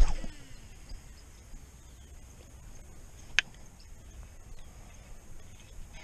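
A sharp click right at the start followed by a short falling whir, then another sharp click about three and a half seconds in, over a low steady rumble.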